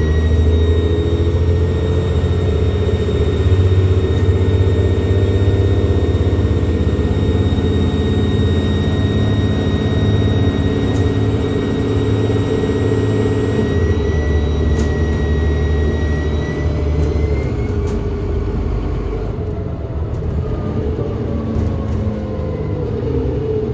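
Dennis Trident double-decker bus's turbocharged diesel engine pulling, heard from inside the saloon, with a steady high turbo whine over the engine's rumble. The engine note changes about two-thirds of the way in, and the whine and engine fall away near the end as the bus eases off.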